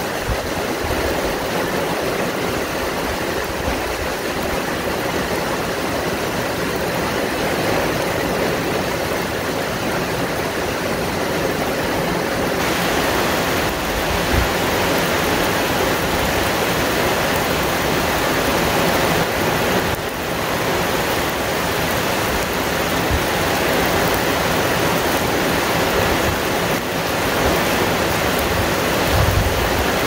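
Heavy rain pouring onto forest trees, with wind: a steady rushing hiss with irregular low rumbles of wind. The hiss grows brighter about twelve seconds in.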